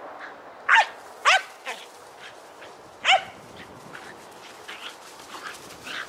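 Australian cattle dogs barking during play: three loud barks, the first two about half a second apart and the third a couple of seconds later, with softer yips and barks after them.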